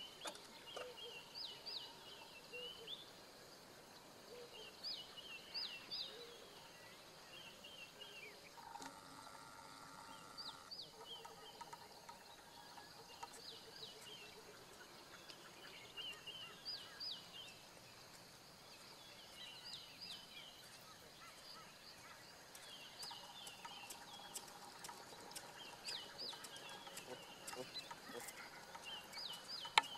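Faint outdoor ambience with a bird calling over and over, a short phrase of quick rising high notes every few seconds.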